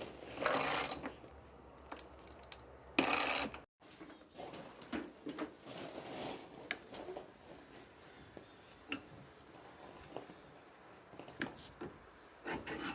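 Metal shop sounds: two short harsh rasps, about half a second in and about three seconds in, then scattered light clinks and knocks of iron and tools being handled.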